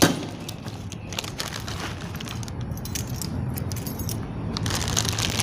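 A sharp knock at the start, then scattered small clicks, jingles and rustling of things being handled.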